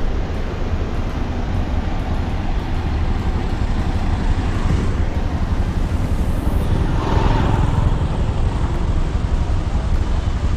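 Steady low road and wind rumble from a vehicle driving past a line of cars stopped in a traffic jam, with a brief swell of noise about seven seconds in.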